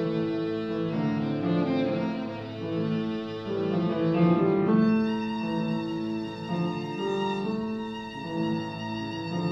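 Violin playing a melody with grand piano accompaniment. From about halfway the violin moves to longer held notes with a brighter tone.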